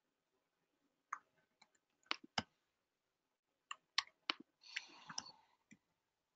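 Scattered sharp clicks from a computer mouse and keyboard, about eight in all, single and in quick pairs, with a short clatter a little past the middle.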